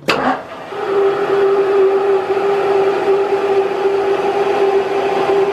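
Manual lathe single-point threading an M16 x 1.25 thread in 4140 steel at 440 RPM. A sharp click at the start, then from under a second in a steady, even hum as the threading tool runs along in the cut.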